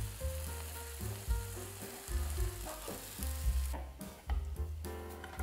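Zucchini pizza sizzling in a frying pan, the hiss fading out about four seconds in, over background music with a steady bass beat.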